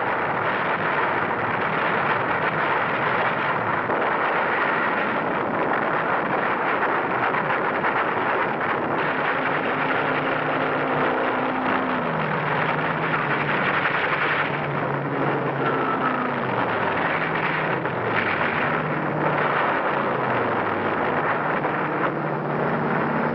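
Battle sound effects on an old film soundtrack: a dense, steady roar of aircraft engines and blasts. In the second half, low tones step downward again and again.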